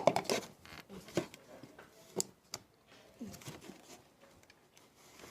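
Scattered clicks and light knocks of small objects being handled and put away, with two sharper ticks about one and two seconds in.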